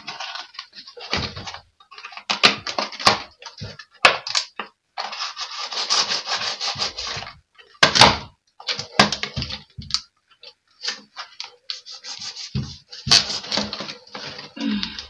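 Knife sawing and scraping through a soil-filled plastic bottle used as a plant pot, in irregular rasping strokes with a few sharp knocks.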